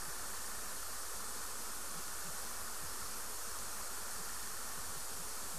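Steady, even hiss of background noise with a few faint low ticks; no distinct bird call or thump.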